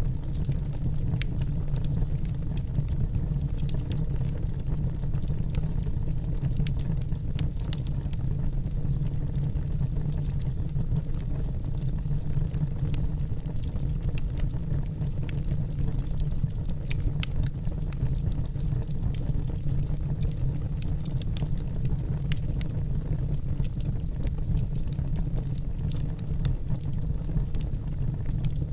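Wood fire burning in a fire pit: a steady low rumble with frequent irregular crackles and pops.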